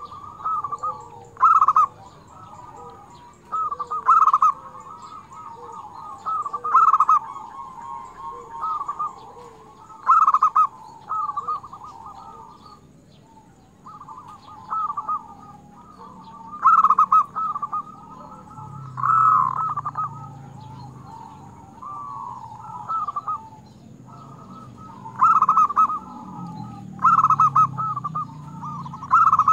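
Zebra dove (perkutut) cooing in repeated rolling phrases, with a loud accented note every two to three seconds and a short pause about halfway.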